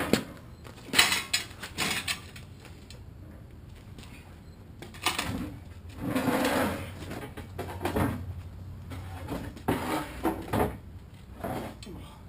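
Steel pieces being handled on a workbench: a series of clanks and knocks, with a longer scraping rattle about six seconds in.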